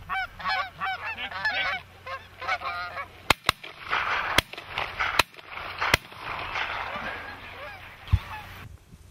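A flock of Canada geese honking, many calls overlapping, densest in the first three seconds before thinning to a hazier chorus. Five sharp clicks fall between about three and six seconds in.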